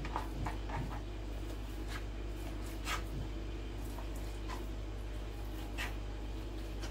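Kitchen knife cutting turkey breast into cubes on a plastic cutting board: irregular soft taps of the blade on the board, a quick cluster in the first second and single ones after, over a steady low hum.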